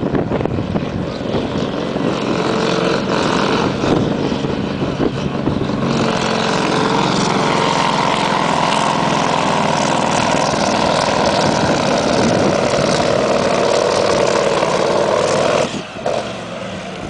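Scania V8 diesel truck engine running flat out under heavy load, pulling a weight-transfer sled down the track and growing louder as it comes nearer. The engine note drops off suddenly about a second before the end as the pull finishes.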